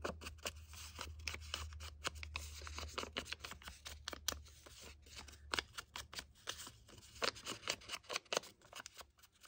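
Ink dauber dabbed and rubbed along the edges of a paper scrap to ink them green: a run of quick, irregular scratchy taps and scuffs.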